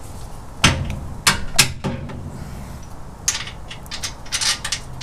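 Metal knocks and clinks of hand tools and parts during work on the truck's rear suspension. There are a few separate sharp knocks in the first two seconds, then a quicker run of clicks and rattles near the end.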